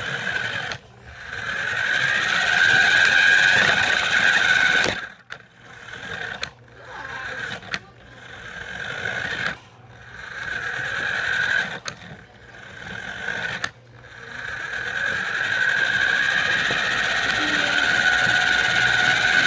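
Electric motor and drivetrain of a radio-controlled car whining in repeated throttle bursts, about seven in all. Each burst swells and then cuts off suddenly, and the first and last are the longest.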